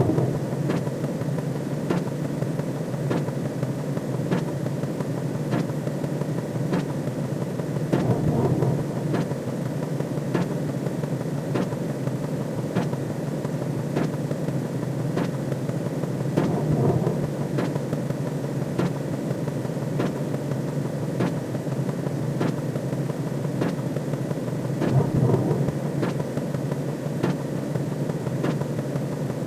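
Looped sci-fi sound effect: a steady low rumbling drone with evenly spaced soft clicks a little more than once a second, swelling about every eight and a half seconds.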